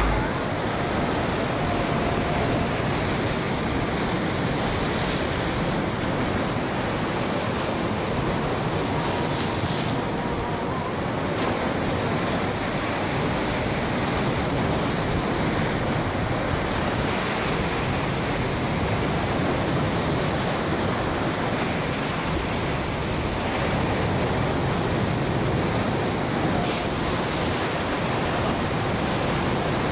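Ocean waves washing on a beach: a steady rushing surf.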